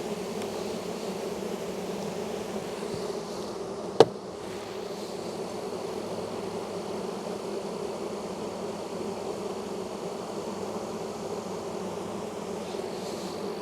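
Honey bee colony buzzing in a steady, dense hum from an open, crowded hive. One sharp knock about four seconds in.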